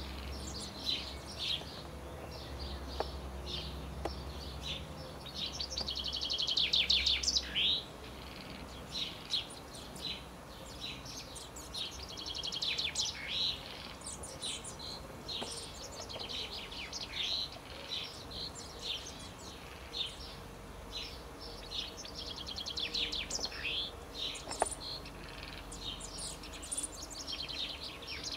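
Common chaffinch courting: three bursts of song, each a rapid run of notes ending in a falling flourish, with many short chirping call notes in between.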